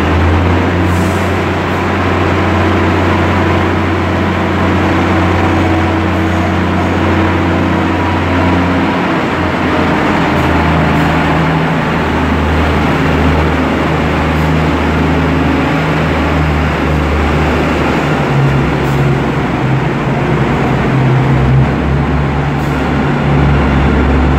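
MTA VakTrak vacuum train running through a subway station, its machinery giving a loud, steady drone over a low hum. The low hum shifts in pitch about nine seconds in.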